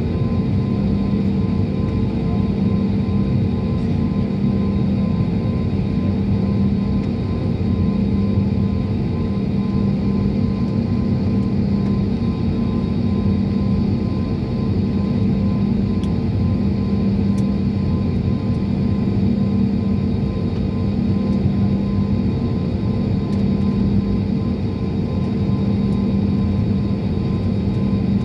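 Jet airliner cabin noise: a steady drone of the engines and rushing air, holding at an even level, with a low hum running through it.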